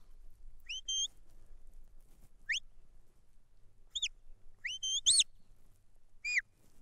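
Sheepdog handler's whistle commands to the working dog: about six short, sharp whistles, mostly quick rising notes, a couple falling, the loudest a rising-and-falling one about five seconds in. Each whistle is a command steering the dog around the sheep.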